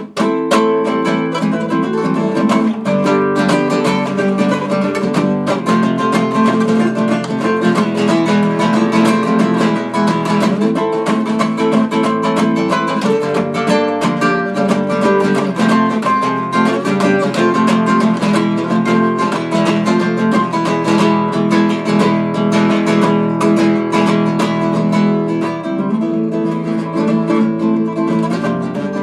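Acoustic guitar playing an instrumental passage of a Russian street song, strummed chords mixed with picked notes, with no singing.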